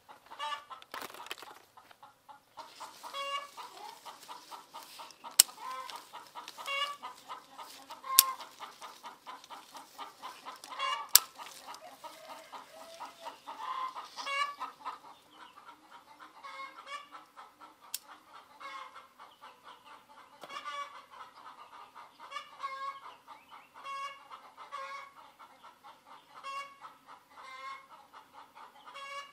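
Chickens clucking over and over, a call roughly every second, with four or five sharp snips of scissors cutting fruit from the branches standing out as the loudest sounds.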